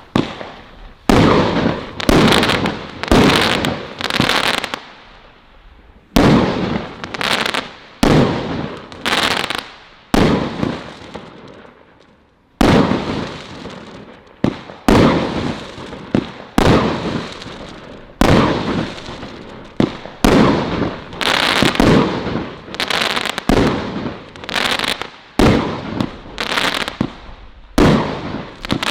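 Celtic Fireworks 'Colour Crackles' firework firing a long run of shots. Each is a sudden bang followed by a dense crackle that dies away over about a second, with two short lulls between volleys.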